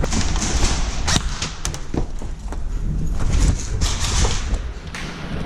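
Airsoft guns firing during play: irregular sharp snaps and cracks of shots and BBs striking, several a second at times, over a hissy rumble of movement and gear.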